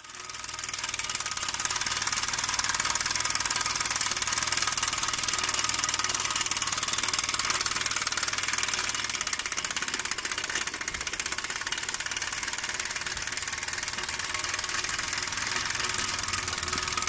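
Mamod SW1 toy steam wagon, a half-track fitted with a 13 mm big-bore oscillating cylinder, running under live steam: a rapid, steady chuffing of its exhaust with a mechanical clatter.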